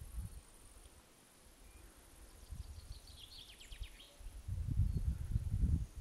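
Gusty wind rumbling on the microphone, growing much stronger in the second half. A short, rapid bird trill of quick high chirps comes about three seconds in, over a faint high insect hiss.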